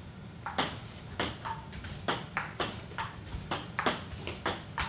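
Table tennis rally: a celluloid ball clicking sharply off paddles and the table, a quick run of knocks every quarter to half second.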